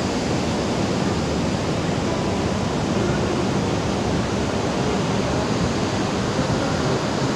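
Ocean surf breaking on a sandy beach: a steady, unbroken rush of waves.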